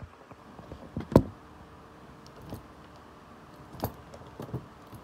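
Clicks and knocks of a tripod light stand's mounting head being handled and adjusted, with the loudest knock about a second in and a few lighter ones after.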